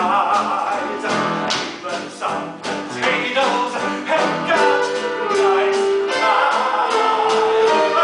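Upbeat show-tune dance music from a musical-theatre band with a steady beat, plus some singing.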